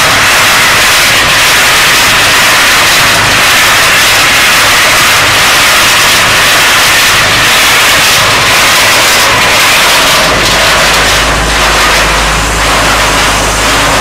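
Ultra T1500 trommel screen processing coal: a loud, steady rattling rush of coal lumps tumbling inside the rotating steel mesh drum, over the machine's running engine. About ten seconds in, a deep low hum rises underneath.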